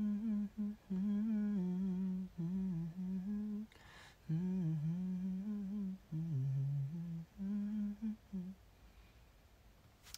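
A man humming a tune with his mouth closed, in short phrases with a brief break about four seconds in. He stops about two-thirds of the way through.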